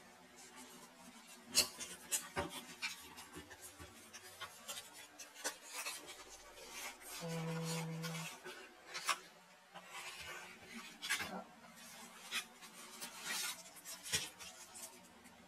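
Cardboard retail packaging handled with cotton-gloved hands: the box rubbing and scraping, an inner box sliding out of its sleeve, and many light clicks and taps. There is a brief low steady tone about halfway through.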